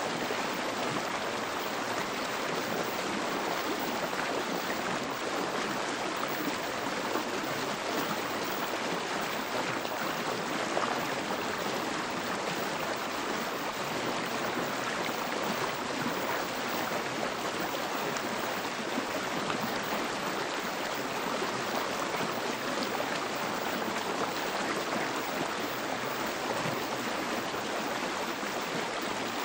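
Steady, even rushing noise with no breaks or changes: the masking layer of a subliminal audio track, with spoken affirmations embedded beneath it.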